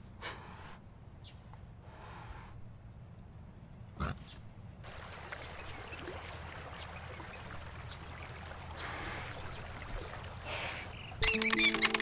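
Deer breathing and snorting in short puffs over a low steady rumble, with a sharp knock about four seconds in and then a soft, even rustling, trickling haze. Loud music with held tones comes in near the end.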